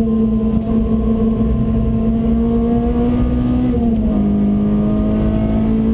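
Renault Clio RS R27's 2.0-litre four-cylinder engine running hard from inside the cabin on track, its note climbing slowly, then dropping a little in pitch about four seconds in and holding steady.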